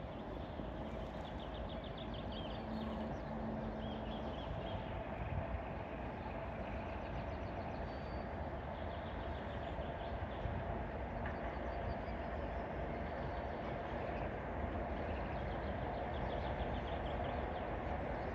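2M62U twin-section diesel locomotive approaching from far off, a steady drone growing slowly louder. Birds chirp now and then over it.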